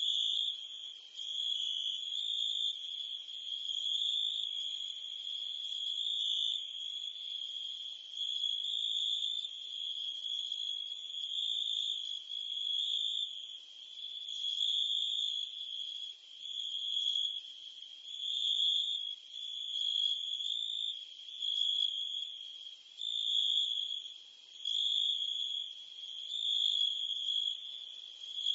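Crickets and cicadas chirping in a continuous chorus: a steady, high-pitched trill that swells and fades about every two seconds, with a fainter, higher trill above it.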